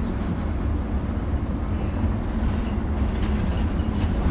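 Steady low rumble of a Solaris Urbino 15 city bus driving along, heard from inside the cabin near the front, with a few faint light rattles.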